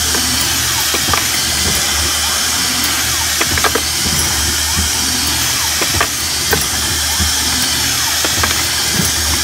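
Automated ammunition case-processing machine running with a steady hum and hiss. Irregular metallic clicks of brass cases drop from its chute into a plastic bucket.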